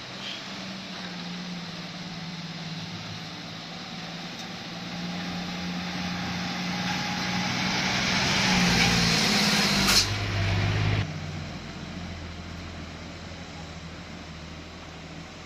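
A truck engine running with a hiss that grows louder to a peak about ten seconds in. A sharp crack comes at the peak, and the sound drops suddenly about a second later.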